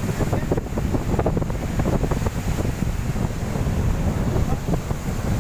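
Strong gusting wind buffeting the microphone, over the steady rush of big waves breaking on the shore.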